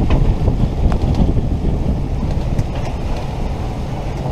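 Steady wind rush buffeting the microphone in a sailing yacht's cockpit, over the low drone of the boat's engine and rushing water as it motors through heavy swells.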